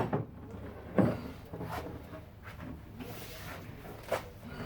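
Knocks and bumps of wooden cabinet parts being handled and fitted together: one sharp knock about a second in, a few light ones after, and another short knock near the end.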